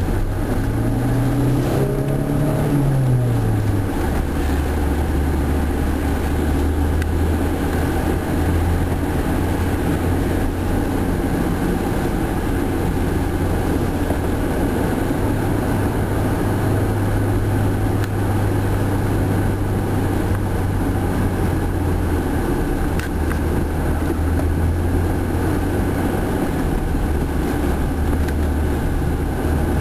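Car engine and tyre noise heard from inside the cabin while driving. The engine note climbs over the first three seconds, drops back about four seconds in, and then runs steadily under a constant road hiss.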